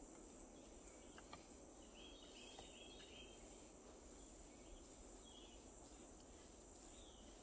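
Near silence: a faint, steady, high-pitched insect drone, with a few faint chirps about two to three seconds in.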